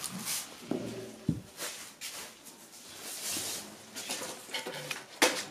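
Paper rustling and handling noises from hand work on cardboard sky shot firework tubes and paper, with a dull thud about a second in and a sharp knock near the end.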